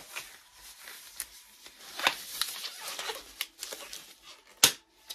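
Disposable gloves being pulled onto the hands: irregular rubbery rustling and stretching, with one sharp snap about four and a half seconds in.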